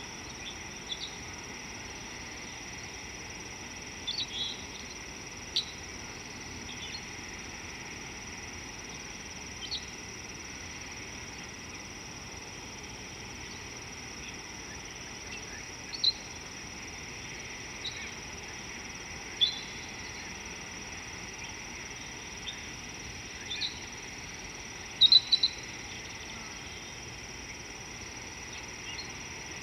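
Steady high-pitched insect chorus, like crickets, with short high chirps every few seconds; the loudest chirps come in a quick cluster about 25 seconds in.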